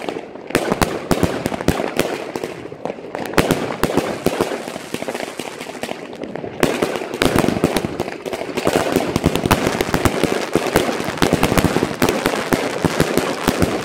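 Aerial fireworks and firecrackers going off in a continuous barrage of overlapping bangs and crackles. There is a short lull about six seconds in, after which the crackling grows denser.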